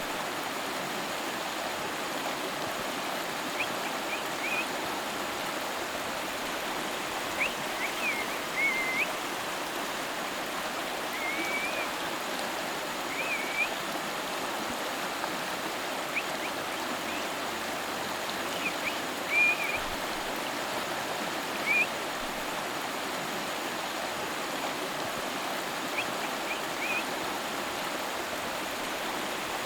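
A river flowing steadily, an even rush of water, with short high chirps every few seconds.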